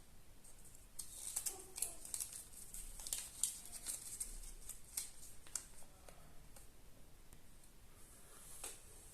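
Kinder Surprise egg packaging being handled and opened: a run of sharp crinkles and clicks of foil and plastic for a few seconds, then one more click near the end.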